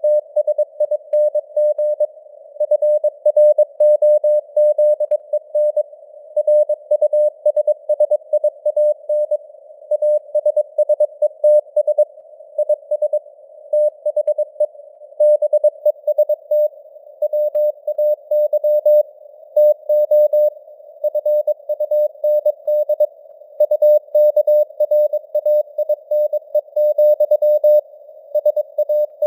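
Morse code sent at 22 words per minute: a single mid-pitched tone keyed on and off in quick dots and dashes. It sits over a faint, narrow hiss of simulated radio noise, its strength varying slightly as simulated fading (QSB).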